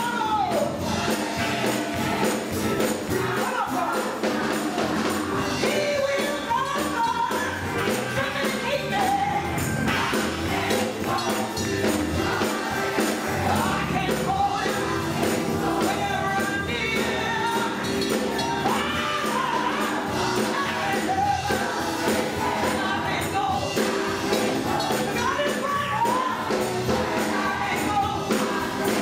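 Gospel choir singing with band accompaniment and a tambourine keeping a steady beat.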